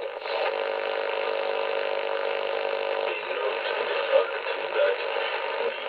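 Icom IC-718 shortwave receiver's AM audio while it is tuned across the 31-metre broadcast band: static and hiss with a steady buzz for about three seconds, then a weak, noisy signal. The band sounds noisy.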